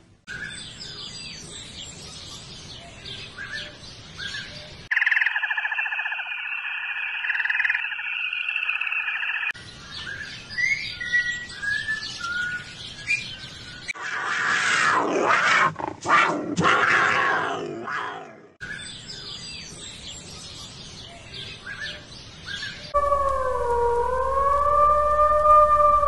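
A run of separate animal recordings: birds chirping, a steady shrill buzz, a leopard's rough rasping calls in several strokes, more chirping, then a wild canid howling near the end, its pitch dipping and rising.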